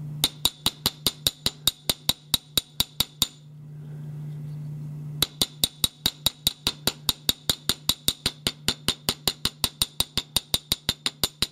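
Small 4-ounce ball-peen hammer tapping lightly and evenly on the head of a steel gun screw, about five strikes a second, peening the damaged metal back over the slot to reform it. The tapping stops for about two seconds a little after three seconds in, then resumes, over a low steady hum.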